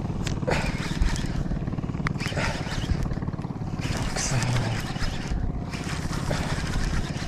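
A boat's engine running steadily, with a few sharp clicks and knocks over it.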